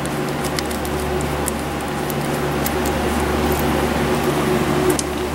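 Steady machine hum in a workshop, with a few faint small clicks and crackles as electrical tape is peeled off the cut end of a braided hose.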